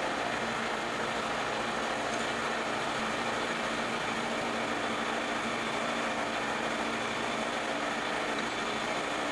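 Vertical milling machine running, its 4-flute end mill cutting the walls of a pocket in metal under manual hand-wheel feed: a steady machine noise with a constant low tone.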